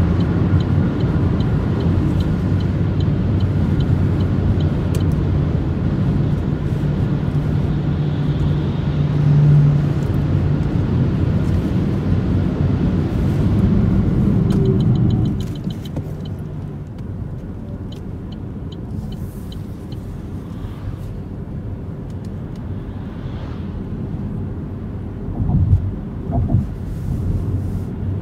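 Cabin noise of an Opel Mokka-e electric car on the move: a steady rumble of tyre and wind noise that drops noticeably in level about halfway through, with faint ticking at times.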